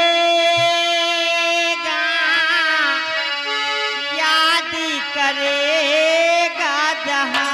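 A singer's high voice holding long, drawn-out notes with vibrato, over a steady harmonium drone, in a live folk-theatre song.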